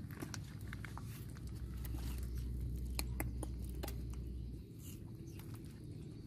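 Scattered light clicks and taps as a baby monkey handles and eats a piece of fruit on a woven mat, over a low rumble that drops away about two thirds of the way through.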